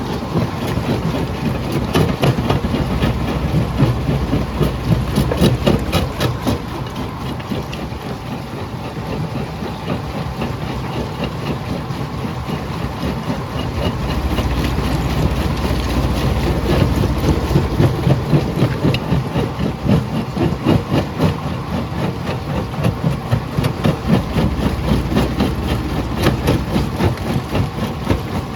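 Jaw crusher running under load, a heavy, steady engine drone with a dense stream of cracks and knocks as rock is broken in the jaws.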